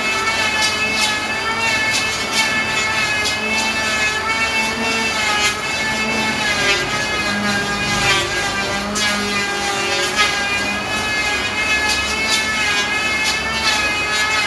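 Electric hand planer running with a steady motor whine while it shaves the top of a solid trembesi wood slab, its pitch wavering slightly as it takes load, with repeated sharp ticks throughout.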